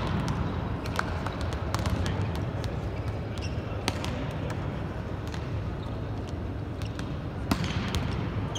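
Volleyballs being spiked and slapping onto the court floor, a sharp smack every second or so at irregular intervals, echoing around a large indoor arena over steady hall noise.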